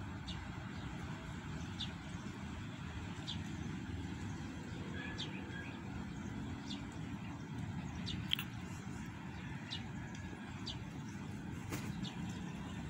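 Outdoor ambience: a steady low rumble under short, high bird chirps that repeat every second or so, one of them louder about two-thirds of the way through.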